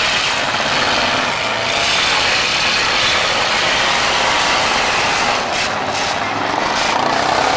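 Engines of several demolition derby cars running together across the arena, a loud, steady din.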